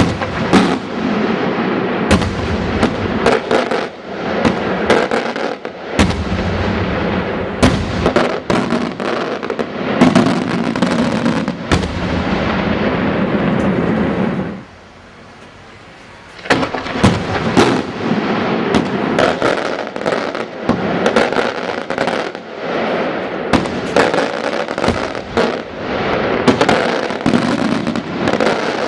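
Fireworks going off in a dense, rapid barrage of bangs and crackling, with a lull of about two seconds about halfway through before the bangs resume.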